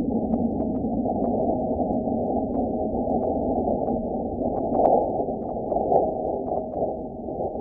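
Sonified seismometer recording from NASA's InSight Mars lander of a meteoroid impact, the data sped up 100 times to make it audible: a dense, muffled rushing noise with scattered short clicks and pops, swelling briefly about five and six seconds in.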